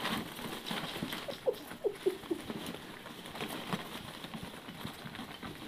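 Polystyrene packing peanuts rustling and clicking as ferrets burrow and scramble through a plastic tub full of them. A cluster of short squeaks comes about one and a half to two and a half seconds in.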